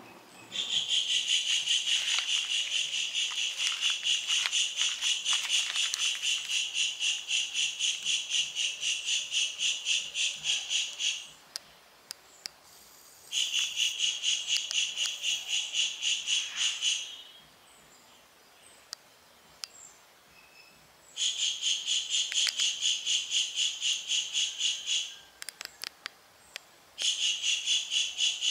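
Insect song outdoors: a loud, high-pitched pulsing buzz that comes in four long bouts of several seconds each, separated by short pauses, with a few faint clicks in the gaps.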